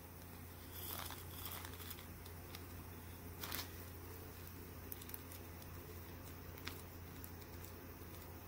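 Faint crinkling of a small plastic zip-lock bag being handled, with two soft sliding rushes, about one and three and a half seconds in, as 3 mm round glass beads are tipped into it from a metal bead tray. A few small clicks follow as the bag's zip is pressed shut.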